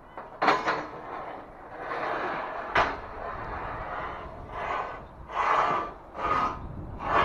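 Steel scaffolding parts being handled: a series of scraping, sliding sounds with a sharp knock near three seconds in, then four swelling scrapes in a rough rhythm.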